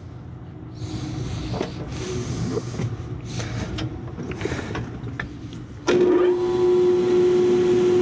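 Light handling rustle and clicks, then about six seconds in the furnace's belt-drive blower motor switches on with a sudden, steady electrical hum and spins up. It runs smoothly now that the spare belt caught in the blower wheel has been cleared.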